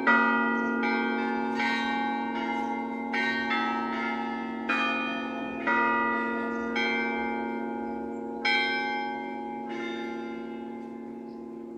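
Church bells struck one after another, about a dozen strokes at uneven intervals, each stroke ringing on under the next. The strokes sound different pitches, so more than one bell is heard. The ringing fades slowly after the last stroke near the end.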